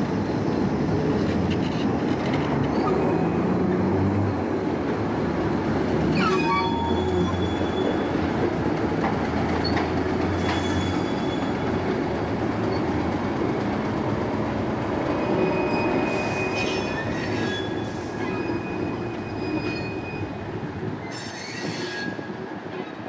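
Queensland Rail diesel locomotives rolling slowly past at close range: a steady low engine drone and wheel noise on the rails. Short high-pitched squeals from the wheels come several times. The sound gradually fades near the end as the train moves away.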